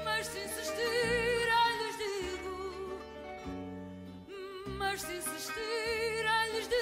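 Portuguese fado music: a melody with heavy vibrato over plucked guitar bass notes.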